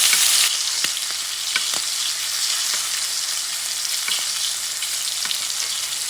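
Ribeye steak frying in a hot cast iron skillet with a butter mix, garlic and thyme: a steady sizzle with scattered pops and crackles, easing slightly about half a second in.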